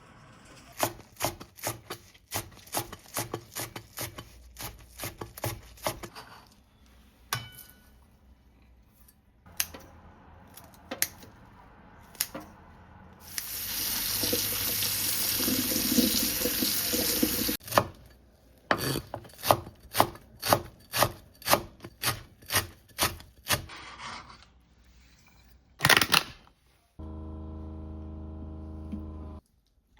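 Kitchen food preparation: a run of regular sharp knocks, two or three a second, then water running from a tap for about four seconds midway. Another run of regular knocks follows, and near the end a steady hum lasts about two seconds.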